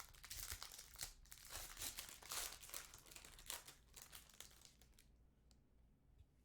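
Plastic wrapping of a trading-card box and its packs crinkling and tearing by hand, a run of quick rustles that dies down about five seconds in.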